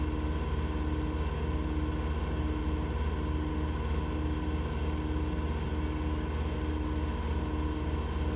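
Engine running steadily at full throttle with no load, a constant drone with a higher tone pulsing on and off about one and a half times a second.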